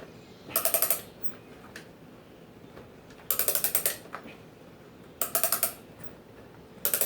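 Ratchet of a Craftsman brace and bit clicking in four short runs of rapid clicks, about two seconds apart. The brace is worked on part-turns with the ratchet engaged because the handle can't go all the way around.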